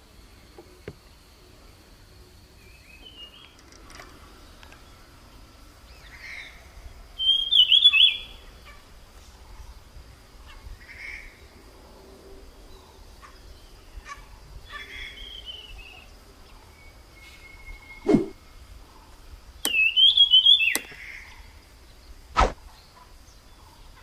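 A small forest songbird singing: two loud, short phrases that fall in pitch, with quieter calls between them. A thin steady high tone runs underneath, and two sharp clicks sound near the end.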